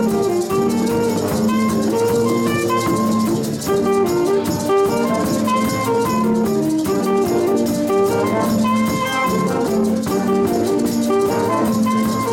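Middle school jazz band playing: saxophone section with baritone, tenor and alto saxes, with brass and a drum kit keeping time on the cymbals.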